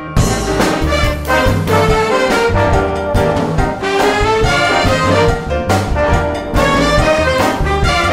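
Big band playing a Latin jazz tune over a repeating two-bar montuno, with trumpets and trombones carrying the line over piano, upright bass, drums and hand percussion.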